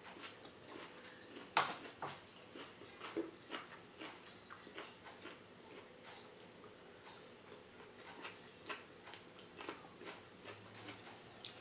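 Close-up chewing of bell pepper and asparagus: irregular soft mouth clicks and smacks, with one louder click about a second and a half in.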